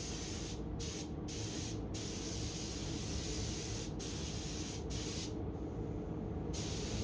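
Paint spray gun hissing as clear coat is sprayed onto motorcycle fairings. The hiss breaks off briefly several times and once for about a second near five and a half seconds in. A steady low rumble runs underneath.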